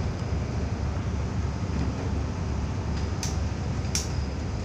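Steady low rumble of a tugboat's diesel engine running while the boat lies alongside a log-laden barge, with two short clicks about three and four seconds in.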